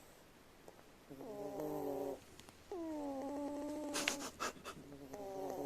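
Domestic tabby cat snoring in its sleep: three drawn-out, pitched snores, each about a second long, at steady breathing intervals, with a few brief snorting clicks at the end of the middle one.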